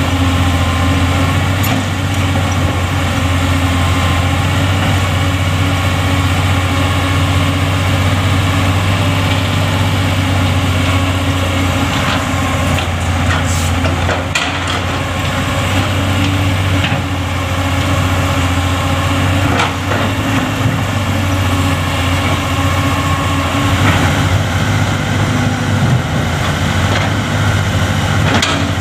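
Excavator's diesel engine running steadily at a low, even hum, with a few sharp knocks scattered through it.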